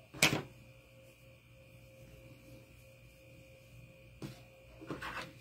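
A sharp knock just after the start as a hand tool is set down on a plastic cutting mat, then a small click and a short cluster of soft knocks and handling noise near the end, over a steady low electrical hum.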